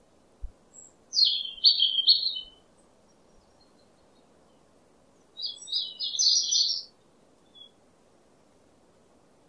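A small bird singing two short phrases of quick, high chirping notes, each about a second and a half long, a few seconds apart.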